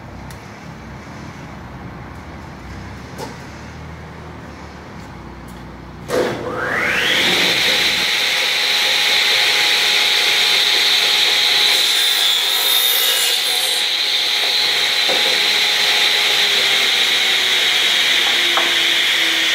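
Large radial arm saw switched on about six seconds in, its motor and blade whining up in pitch to full speed within about a second, then running steadily with a loud high whine. A low rumble of background machinery comes before it.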